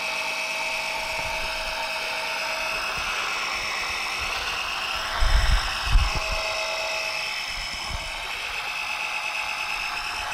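Small 12-volt electric fluid pump running with a steady whine as it sucks engine oil out through a tube pushed down the dipstick tube. A few low thumps about five to six seconds in.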